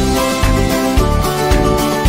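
Upbeat background music with a steady beat and bright melodic notes.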